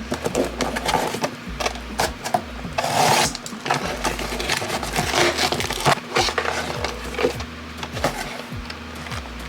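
Hands working a plastic phone case off and onto a phone: a rapid run of clicks, taps and snaps, with a longer scrape about three seconds in.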